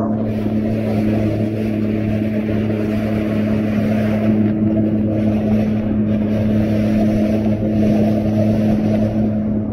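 Jet ski engine running at a steady speed, its hum holding one even pitch, under a steady rushing noise that comes in right at the start.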